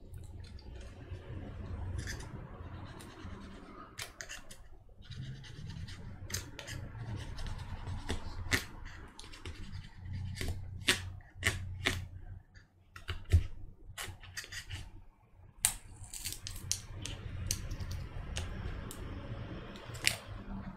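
Thin prying tool scraping and clicking under a glued laptop battery cell as it is pried up from the aluminium case: scratchy scraping with scattered sharp clicks, over low rumbling handling noise.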